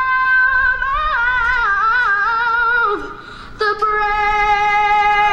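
A woman singing alone. She holds a long note, moves through a run of wavering notes with vibrato, pauses briefly about three seconds in, then holds another long steady note.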